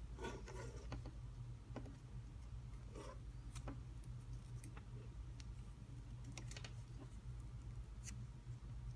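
Faint handling sounds of tape being wrapped around a soldered wire joint: scattered light clicks and short rustles, over a steady low hum.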